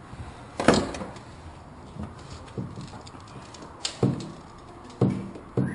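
A series of irregular knocks and clunks, about seven in all, the loudest one under a second in.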